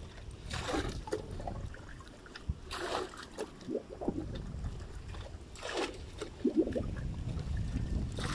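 Liquid poured from a plastic bottle into a bucket and stirred, trickling and splashing in a few short spells, with wind rumbling on the microphone.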